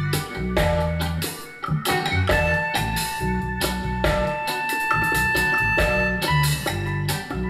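Reggae music with a regular beat and strong bass, played through a pair of Sharp CP-C411H bass-reflex mini-system loudspeakers and picked up by a microphone in the room.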